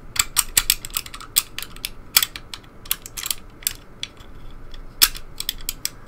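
Plastic clicking and tapping as thin 3D-printed lever gates are slipped into a 3D-printed plastic lever lock's body: a quick run of light clicks, more scattered clicks, and one sharper click about five seconds in.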